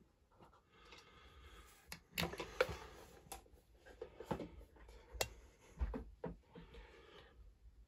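Faint handling noise: scattered light clicks and knocks with soft rustling, the loudest clicks a couple of seconds in and again around five to six seconds in.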